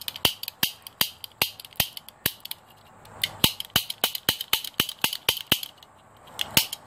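Plastic toy cap revolver being worked over and over: the trigger and hammer snap down again and again in a fast, uneven string of sharp clicks and snaps, with two short lulls.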